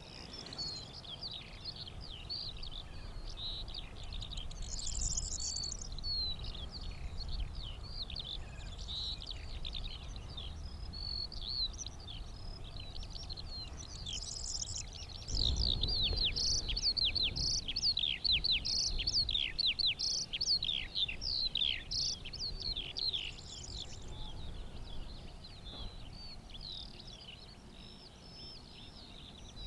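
Songbirds singing over open fields: a continuous, fast twittering of many quick notes, with a few short buzzy jangling phrases mixed in. A low rumble of wind on the microphone rises briefly about halfway through.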